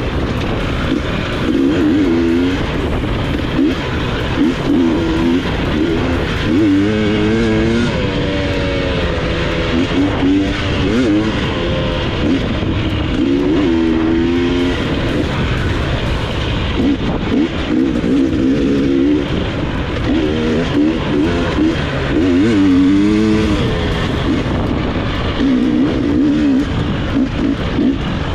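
Dirt bike engine revving up and down as the rider works the throttle and gears along a rough trail, with wind and rushing noise on the helmet microphone.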